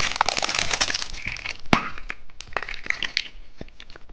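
Plastic candy packaging being opened by hand: steady crinkling with many small clicks, and one sharp plastic snap a little under two seconds in.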